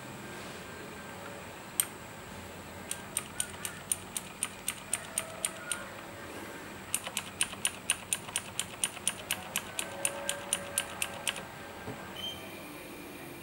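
Keys of a Razer BlackWidow Chroma mechanical keyboard being pressed one at a time, each giving a sharp click. There is a single keystroke, then a steady run of about four a second, a pause, and a second, slightly faster run.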